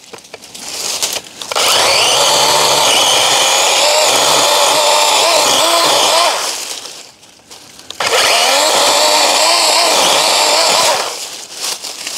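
DeWalt 20V MAX XR 12-inch cordless electric chainsaw (DCCS620) cutting through woody shrub stems in two long runs of about five and three seconds, with a short pause between. Its motor whine wavers in pitch while the chain is in the wood.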